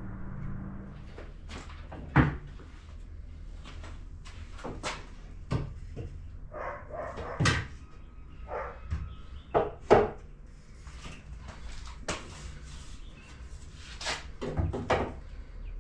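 Scattered knocks and clacks of a long metal level and a plastic speed square being set against timber wall studs and the concrete floor while checking the corner for square, over a steady low hum.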